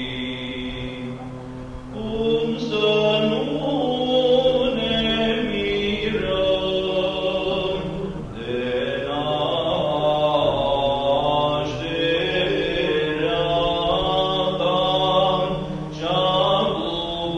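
Background music of slow vocal chanting: long held sung notes in phrases of a few seconds over a steady low drone.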